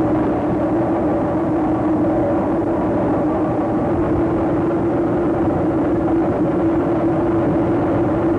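Coconut oil mill machinery running with a steady drone and a constant hum.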